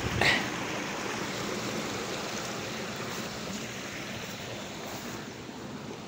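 Creek water flowing under a bridge: a steady rushing hiss. A brief, sharper sound stands out just after the start.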